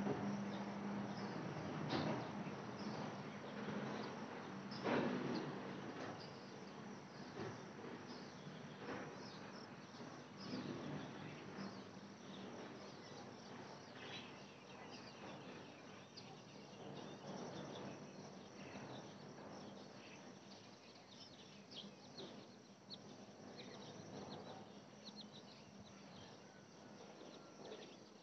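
Crickets and other insects chirring steadily, with a few louder knocks in the first ten seconds; the whole gradually grows fainter.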